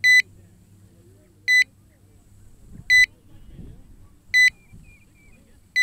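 Short, high electronic beep repeating evenly about every one and a half seconds, over a faint low background.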